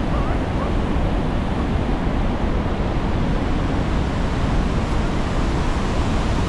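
Steady roar of Niagara Falls' falling water and the churning river below.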